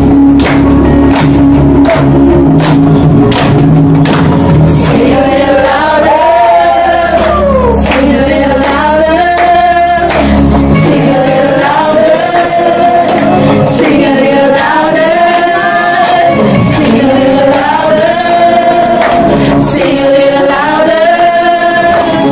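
A group of people singing a song together in unison, backed by instrumental accompaniment with a steady bass, and clapping along to the beat.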